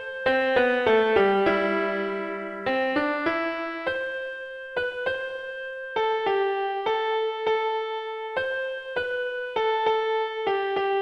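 Piano or electric piano music: a melody of single struck notes over sparse lower notes, each note ringing and fading.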